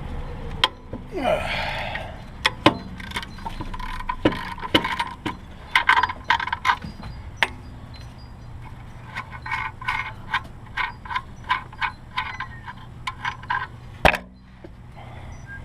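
Ratchet wrench clicking and hand tools clinking on metal as a 15 mm nut is worked off an alternator mount, with a run of regular ratchet clicks in the second half and one sharp metal knock near the end.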